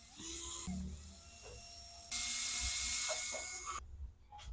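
Power drill-driver spinning screws out of an angle grinder's plastic housing: a short burst right at the start, then a longer run of nearly two seconds from about two seconds in. A few light clicks near the end.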